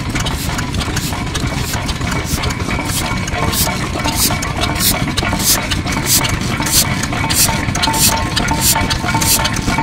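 Yanmar Diesel Type HC single-cylinder diesel engine (10 hp, rated 600 rpm) running steadily, its exhaust breathing out through the silencer in a regular, even beat over a low rumble. The beat grows more pronounced from about three seconds in.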